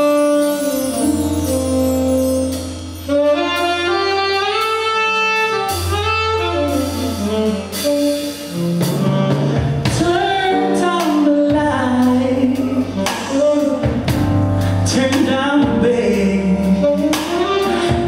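Small jazz band playing live: a saxophone carries a slow melody over keyboard, electric bass and drum kit, with the drums and percussion growing busier about halfway through.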